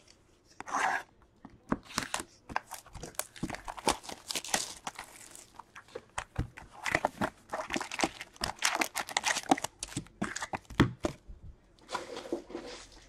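Packs of Metal Universe hockey cards being torn open by hand: wrappers tearing and crinkling, mixed with many sharp irregular clicks and rustles of handling.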